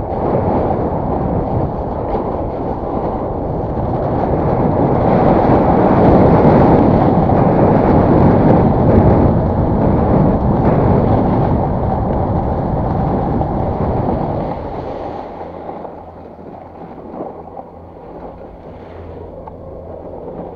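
Snowboard sliding and scraping over packed, groomed snow, with wind rushing over the camera microphone. The rumble builds to its loudest mid-run, then drops after about fifteen seconds as the rider slows, leaving a low steady hum underneath.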